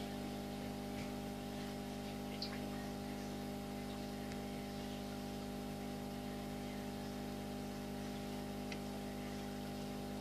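Steady electrical hum of an aquarium pump, with a faint hiss and a couple of faint ticks.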